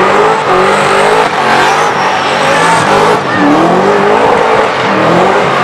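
Burnout car's engine held at high revs, its pitch wavering up and down as the throttle is worked, over the steady rush of rear tyres spinning and smoking on the pavement.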